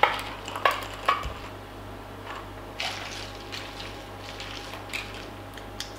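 A stirrer clinking against ice and glass in a tall drink, with three sharp clinks in the first second or so, then fainter stirring clinks and liquid sounds.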